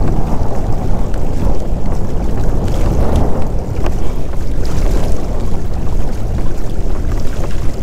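Heavy wind buffeting the microphone on a pedal kayak under way across choppy water, a loud, gusting low rumble.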